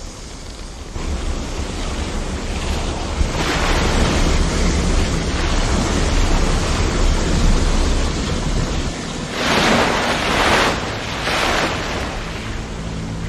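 Liquid nitrogen spraying and venting from a ruptured tanker: a loud, steady rushing hiss with a low rumble underneath, swelling into two stronger gushes near the end.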